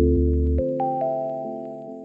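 Background music: soft sustained keyboard or mallet-instrument notes over a deep bass tone, with a few higher melody notes coming in, each note fading slowly.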